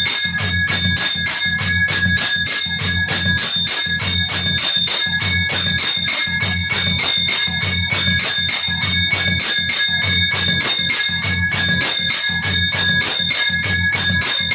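A new ghanta (bell) rung rapidly and continuously, with quick, even strikes several a second over steady, overlapping ringing tones. A low, pulsing beat runs beneath the ringing.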